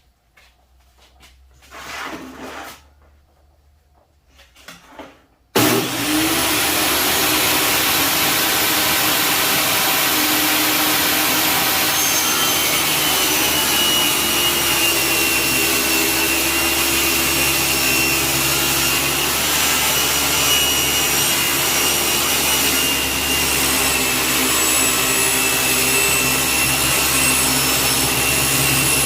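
Table saw starting with a sudden rush about five and a half seconds in after a few small knocks, then running at full speed with a steady high whine.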